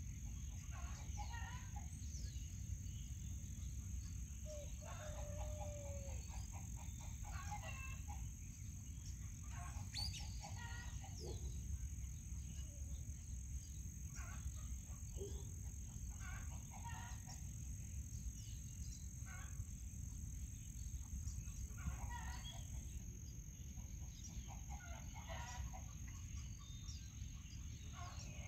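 Chickens clucking and calling off and on, in short separate bursts, over a steady low background rumble.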